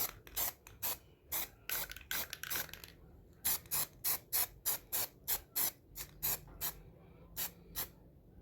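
Aerosol can of one-step primer sprayed in short, rapid bursts, about two to three hissing puffs a second, laying a light coat on bench vice parts.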